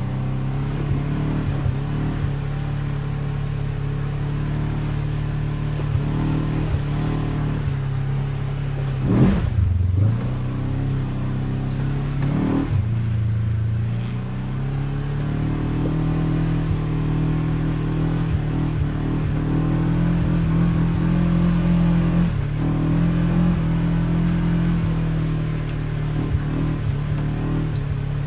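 Off-road vehicle's engine running at low trail speed, its pitch rising and falling as the throttle changes, with a couple of brief knocks about nine and twelve seconds in.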